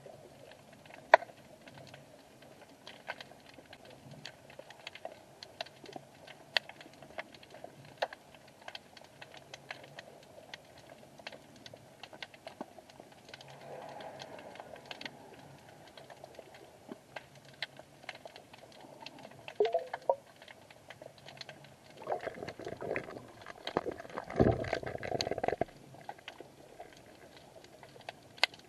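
Underwater ambience picked up through an action camera's waterproof housing on the sea floor: scattered sharp clicks and crackles, several a second, over a faint hum. Near the end comes a louder spell of rushing and knocking noise.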